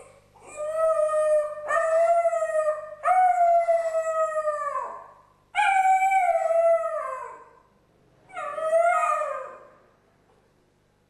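A West Highland White Terrier howling while left home alone: about five long howls in a row, each sliding down in pitch at its end.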